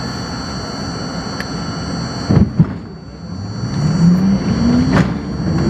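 R42 subway train's traction motors whining as the train pulls away from the station, the whine rising steadily in pitch as it accelerates. Before the start there are two heavy thumps about two and a half seconds in, and a sharp click comes near the end.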